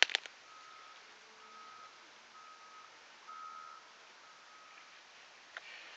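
An electronic beeper sounding a steady high beep of one pitch, about once a second, five times. A couple of sharp clicks at the very start and a single click near the end.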